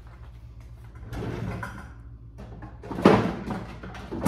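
Kitchen cabinet being opened and shut: a scuffing rattle about a second in, then a sharp knock about three seconds in and another near the end.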